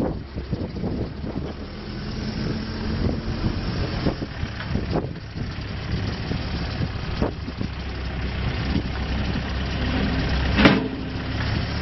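Case 580SM-II backhoe loader's diesel engine running steadily, with a few sharp knocks over it, the loudest near the end.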